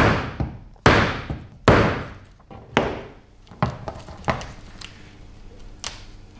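Mallet blows driving a steel hole punch through sailcloth into a wooden board, cutting the hole for a grommet in the sail's corner. About seven strikes roughly a second apart, the later ones fainter.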